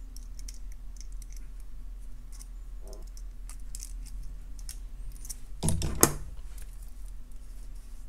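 Small metal clicks and ticks of jewelry pliers handling wire as a wire loop is wrapped closed around itself, with a louder clack about six seconds in. A faint steady hum runs underneath.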